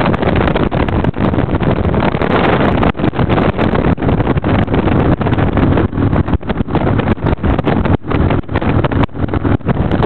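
Wind rushing hard over the microphone of a camera on a motorcycle at highway speed, mixed with the bike's engine and road noise. It is a loud, steady rush, broken by many brief dropouts.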